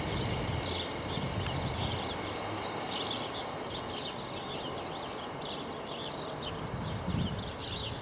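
Small birds chirping and twittering over a steady low background rumble.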